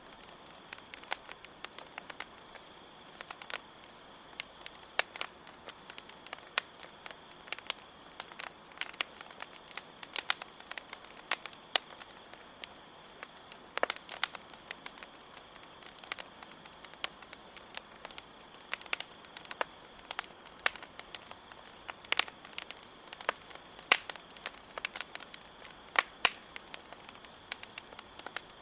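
Campfire crackling, with irregular sharp pops and snaps, over a steady high chirring of crickets.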